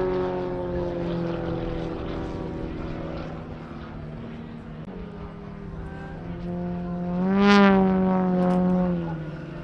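Extra 300S aerobatic aircraft's six-cylinder piston engine and propeller droning in flight, flying alongside its large radio-controlled model. The tone slides slowly lower at first, swells to its loudest about seven and a half seconds in, then drops in pitch as the planes pass.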